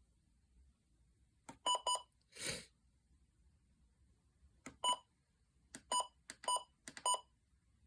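Short electronic beeps from a radio's buttons being pressed: two quick beeps about two seconds in, a brief burst of hiss, then four more single beeps, each with a faint click of the button just before it.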